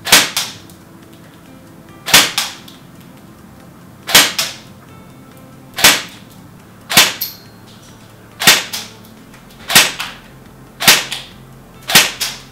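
ARES M45 airsoft electric rifle firing single shots on semi-auto: nine sharp cracks spaced about one to two seconds apart. Each is followed a moment later by a fainter second report.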